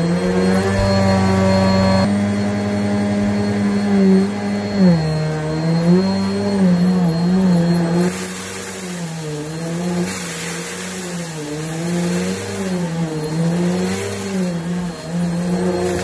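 Bissell Helix Turbo upright vacuum running on carpet, its motor hum dipping in pitch and recovering with each push and pull. From about halfway through, a gritty, sizzly crackle joins as the brush head sucks up a pile of pet hair and dry noodle crumbs.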